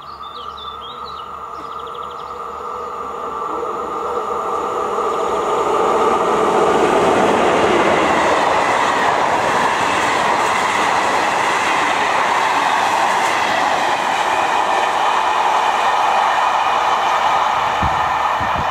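Czech Railways class 362 electric locomotive and its passenger coaches passing at speed. The sound grows louder over the first few seconds and the locomotive's hum drops in pitch as it goes by, then the coaches' wheels give a steady loud rumble and clatter on the rails.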